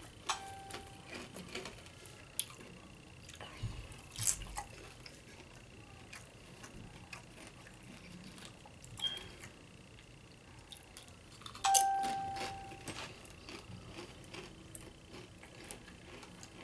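Small clicks and crunches of Doritos tortilla chips being handled in a nacho pile. Two single pitched dings sound over it: a faint one at the very start and a much louder one about two-thirds of the way through, which rings for about a second.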